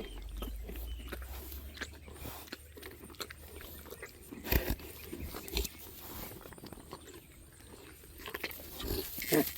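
Farm animals crunching and chewing treats: many small irregular crunches, with two louder knocks about halfway through.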